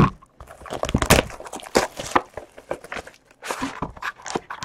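Trading card box and packs being handled: an irregular string of light taps, knocks, slides and rustles of cardboard and wrapper, with a sharper knock right at the start.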